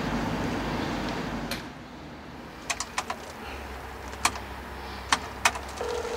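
Buttons on a BT payphone's metal keypad being pressed one by one, a scatter of sharp clicks with short pauses between them. Near the end a steady tone from the phone's handset starts.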